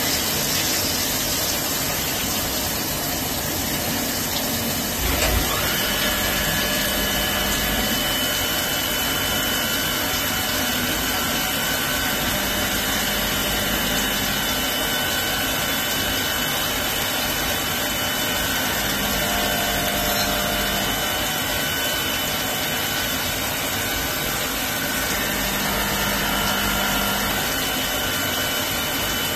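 DAS Swiss-type CNC lathe machining under flood coolant: a steady hiss of coolant spray and machine noise. After a short knock about five seconds in, a steady high whine sets in and holds.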